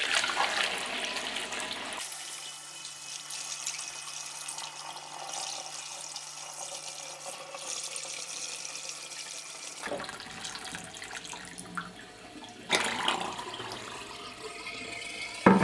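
Cold water pouring from a plastic bucket through a plastic funnel into a glass carboy, splashing and gurgling steadily. The middle of the pour is sped up, and near the end the funnel drains.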